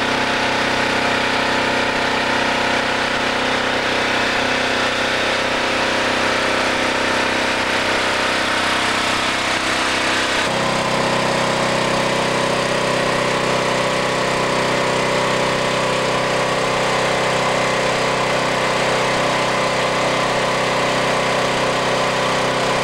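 Heavy diesel engine of a heavy-haulage rig running steadily under load as the multi-axle trailer moves. Its note shifts abruptly about ten seconds in.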